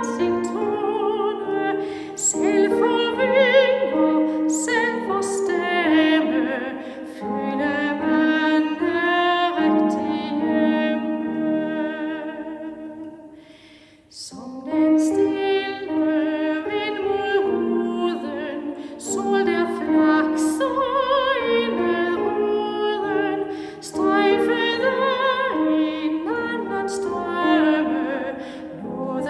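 Classical soprano singing a slow, lyrical waltz hymn with vibrato, over instrumental accompaniment. The music thins out to a brief pause at a phrase break about halfway through, then resumes.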